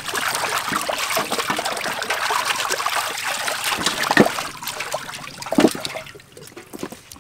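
Water splashing and sloshing in a large aluminium basin as hands scrub and turn whole plucked chickens; the splashing eases off about six seconds in.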